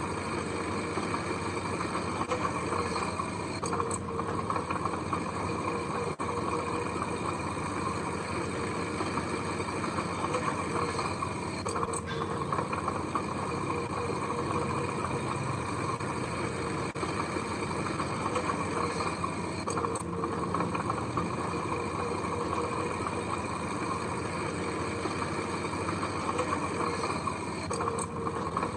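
Heavy construction machine's diesel engine running steadily, with no change in speed.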